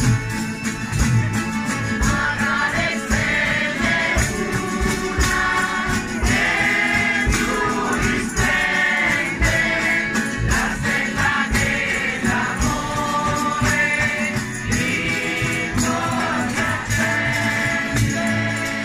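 A crowd singing a traditional Abruzzese end-of-year serenade together, accompanied by accordion, acoustic guitar and tambourines. The tambourines' jingles keep a steady beat under the voices.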